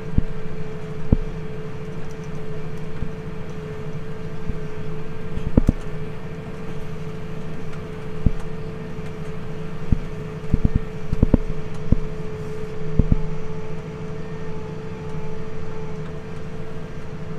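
Tractor running steadily while driving a hay tedder, with a constant droning tone and irregular sharp knocks and rattles.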